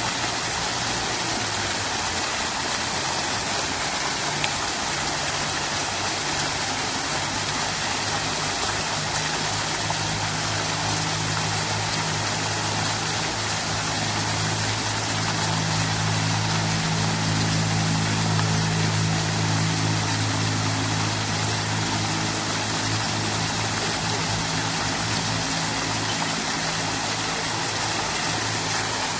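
Water from a fountain splashing and rushing steadily. A low hum swells in the middle and fades near the end.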